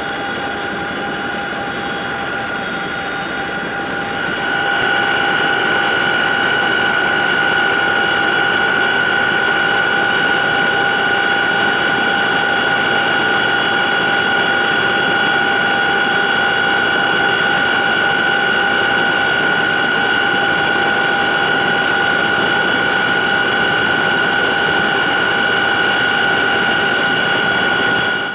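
Twin turbine engines of a CH-47J Chinook helicopter running after landing: a steady, high turbine whine of several fixed pitches over a rushing noise. It steps up louder about four seconds in.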